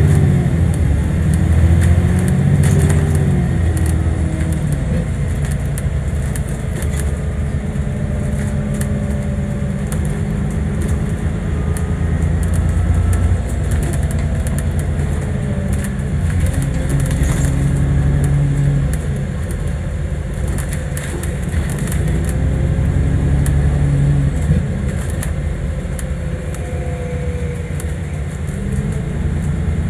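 Alexander Dennis Enviro400 MMC double-decker bus heard from inside the passenger saloon while driving: a steady low engine rumble whose pitch rises and falls several times as the bus speeds up and slows, with frequent small rattles and clicks.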